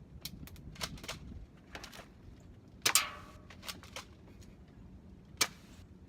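Airsoft gun firing: sharp pops, the loudest about three seconds in and near the end, with fainter clicks between.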